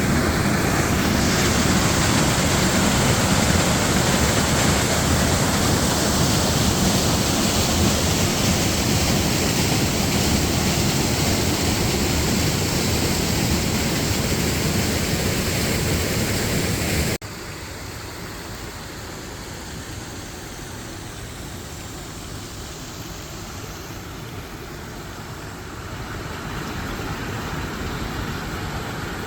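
Lake water rushing and pouring down into a sinkhole as a steady, loud rush of noise. About two-thirds of the way through it drops suddenly to a quieter, steady rush.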